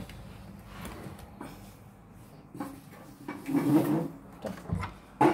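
Plastic clicks and knocks from a Sharp sandwich and waffle maker being handled, ending with one loud clack about five seconds in as its hinged lid is shut.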